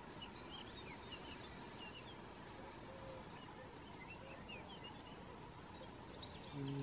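Faint small birds chirping now and then over a quiet outdoor background. Near the end a woman's voice starts a steady, held low tone, the Qi Gong lung healing sound.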